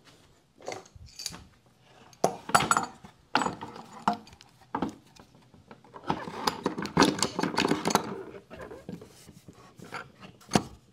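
MicroJig clamp clicking and clinking, with wooden knocks, as it is fitted into the dovetail track of a plywood taper jig and screwed down on a board. Irregular clicks and rattles, busiest about six to eight seconds in.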